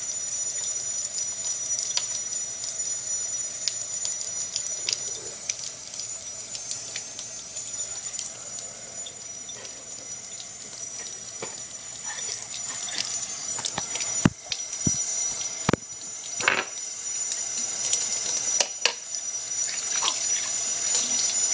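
Water running steadily from a tap, a continuous hiss. About two-thirds of the way in, a few short, sharp sounds cut through it.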